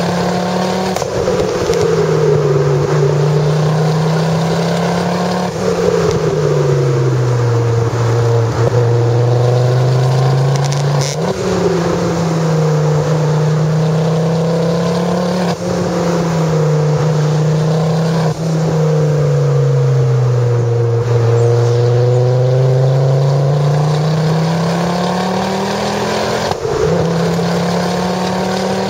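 Ford Focus RS with a Milltek exhaust, driving under way. The engine note climbs and falls with throttle and gear changes, with several abrupt shifts in pitch.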